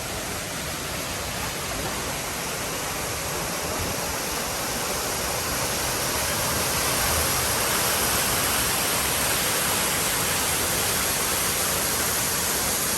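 Steady rush of falling water from a waterfall, growing louder about six seconds in.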